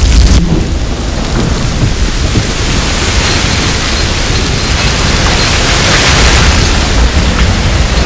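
Oil well gusher blowing out through a wooden derrick: a loud, steady rushing roar with a deep rumble underneath.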